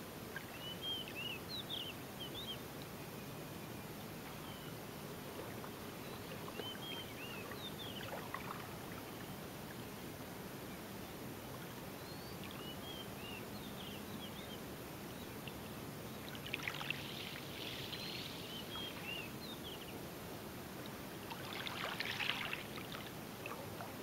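Calm sea gently lapping at the shore with a steady low wash, while birds sing short chirping phrases every few seconds. Twice, about two-thirds in and near the end, a louder rushing wash of water briefly rises over the rest.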